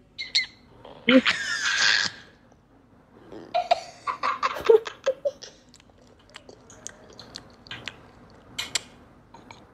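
Laughter: a child's shrieking laugh about a second in, followed by scattered short bursts of giggling.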